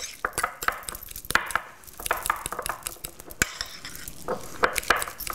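Metal utensil scraping and clinking irregularly against a small ceramic bowl while mashing hard-boiled egg with mayonnaise into a chunky egg salad.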